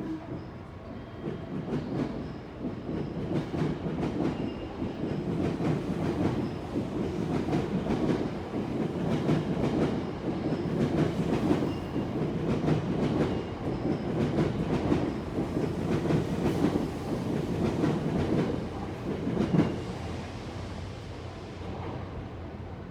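Seibu Railway electric train running past, a rumble with a quick run of wheel clicks over the rail joints; it builds about a second in and fades away near the end.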